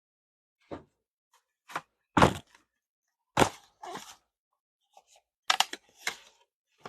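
A string of sharp clacks and knocks from objects being handled and set down, about seven in all. The loudest comes about two seconds in, and there is a close pair of clacks near the end.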